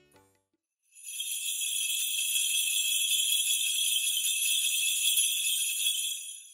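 A steady shimmer of small jingle bells, used as a sparkle sound effect for a logo. It starts about a second in and fades out at the end.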